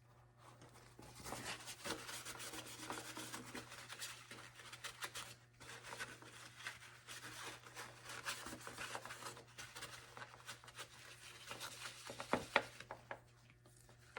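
Irregular rubbing and scraping of hands working plastic armour pieces and strap material, with a sharper knock about twelve seconds in.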